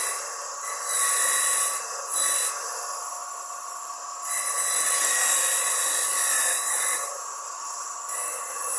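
Homemade electric coconut grater, driven by a salvaged water-pump motor, running with a steady whine. Coconut is pressed against the spinning grater blade in several bursts of loud rasping, the longest for a few seconds in the middle.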